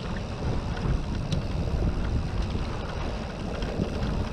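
Wind buffeting the microphone of a handlebar-mounted camera, over the steady noise of an electric mountain bike's tyres rolling along a grassy dirt track.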